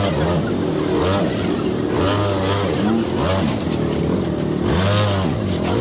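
Aprilia scooter's engine revving up and down several times in a row as the rider eases it along at low speed.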